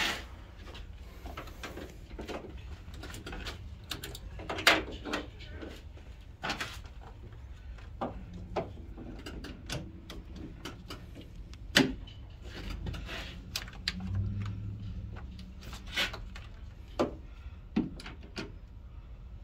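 Scattered clicks, knocks and rattles of jumper cable clamps and engine-bay parts being handled while a jumper is hooked to a dead car battery, over a low steady hum.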